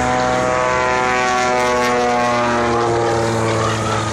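Propeller engine of an aerobatic biplane running hard in a vertical dive, a steady drone whose pitch falls over the second half. The sound drops away near the end.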